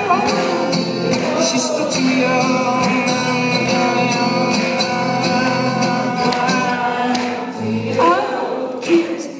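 Live acoustic song: a man singing long held, wordless notes into the microphone while the audience keeps a steady rhythm with finger clicks and claps.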